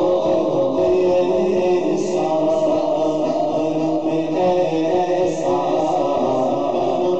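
A man's voice singing a naat, an Urdu devotional poem, through a microphone and PA, in long melodic phrases with held notes.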